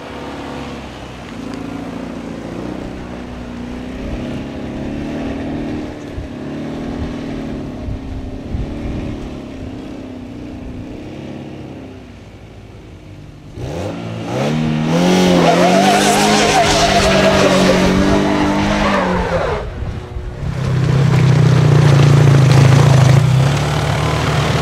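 MG F sports car engine pulling up a steep rocky climb, its note wavering as the driver works the throttle. About halfway through it revs hard, rising and then falling back, with loose stone scrabbling under the spinning tyres. Near the end a steady low engine note takes over, from a sidecar outfit's engine running.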